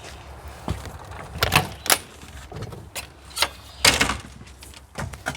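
Irregular knocks and clicks, about a dozen of them, some in quick pairs, with the loudest near the middle and about four seconds in.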